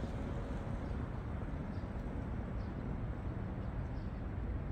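Steady low outdoor rumble with a few faint, short, high bird chirps. The last notes of background music die away in the first second.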